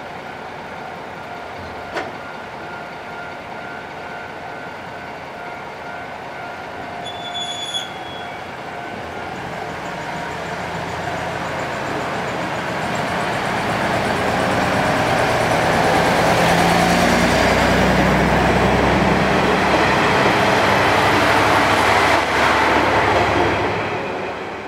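KiHa 30 diesel railcar idling at a platform, then pulling away. Its engine note swells as it accelerates past and dies away near the end.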